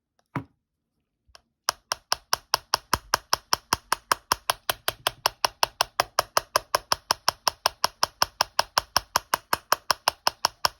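Rapid, even tapping on an iPhone 6s, about five strikes a second, starting about two seconds in. The phone is being knocked over the spot thought to have a poor internal connection, to jog it into booting.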